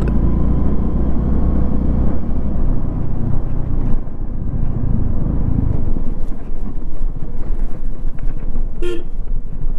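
Motorcycle on the move, with a steady low rumble of engine and wind noise, and a short vehicle horn toot about nine seconds in.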